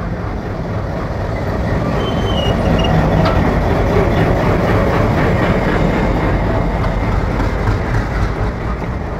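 WDM-3A diesel-electric locomotive with its ALCO 16-cylinder engine passing close by, engine running and wheels rolling on the rails. It grows louder to a peak about four seconds in, then fades as it moves away.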